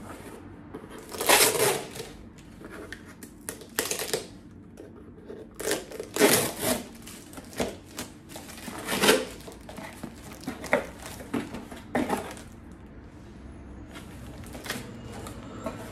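Packing tape being ripped off a cardboard box and the flaps pulled open: a run of short tearing and rustling bursts, the loudest a few seconds apart, with quieter cardboard handling between them.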